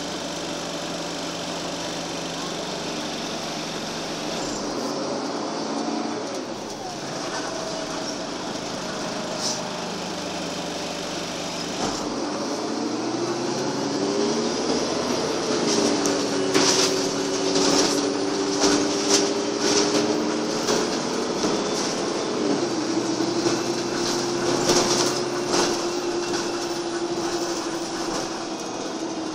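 Inside a Karosa B941E articulated city bus on the move: the engine and drivetrain running with a whine that climbs in pitch as the bus gathers speed and then holds steady. Sharp rattles and knocks from the body and fittings over the road come in the middle, most often in the second half.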